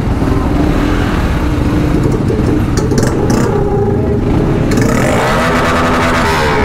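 Dirt bike engines running close by, with the revs rising and falling over the last second or two, and a few clattering knocks in the middle.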